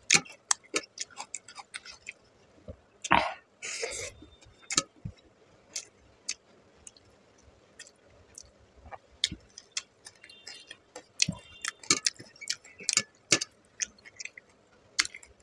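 Close-miked chewing of rice and fish curry: many short, sharp wet clicks and smacks of the mouth, with a longer breathy noise about three seconds in. Fingers mix rice on a steel plate.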